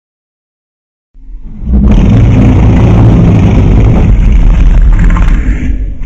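Silence, then about a second in a loud, low rumbling noise swells up over half a second and holds steady.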